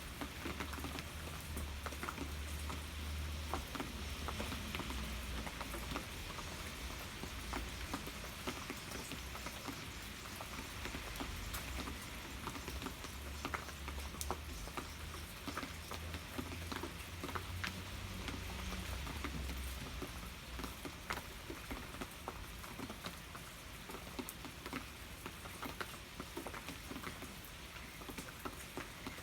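Steady rain falling, with many individual drops ticking on a surface. A low rumble runs underneath and fades out about two-thirds of the way through.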